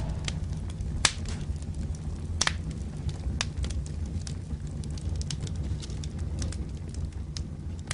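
Fire sound effect: a steady low rumble with scattered sharp crackles and pops, as after an explosion.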